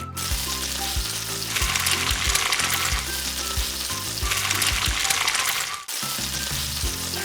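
A recorded sizzling, frying sound effect over a bouncy music track with a steady beat. Both cut out for a moment about six seconds in, then start again.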